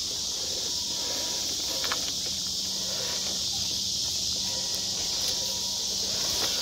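Steady high-pitched buzzing chorus of night insects, with a couple of faint clicks.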